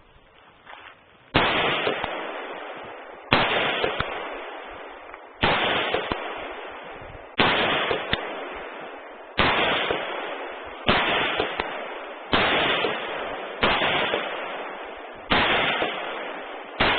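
AR-15 rifle fired in single shots, about ten of them one and a half to two seconds apart, the first about a second and a half in. Each shot rings out and dies away over a second or two.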